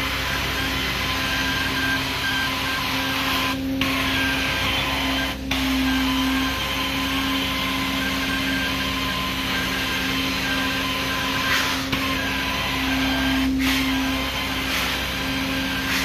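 Carpet-cleaning extraction vacuum running steadily: a constant suction hiss with a whine. A few brief dips break it, about four, five and thirteen seconds in.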